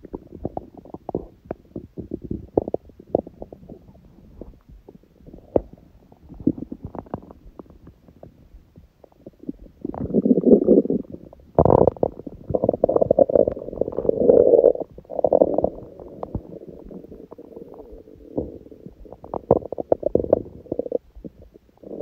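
Human stomach growling from hunger, close to the microphone: scattered small gurgles and pops, then a louder, longer rumble about halfway through that lasts several seconds before settling back into small gurgles.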